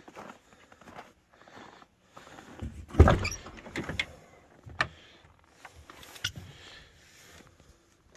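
Door of an old Chevy 1500 extended-cab pickup being opened: a heavy clunk about three seconds in, followed by several sharp clicks and knocks from the latch and door.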